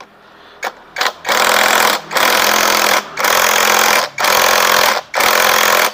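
Cordless impact wrench with a 17 mm socket hammering the magneto rotor nut tight on a Yamaha Crypton crankshaft. Two short blips, then five bursts of about a second each with brief pauses between.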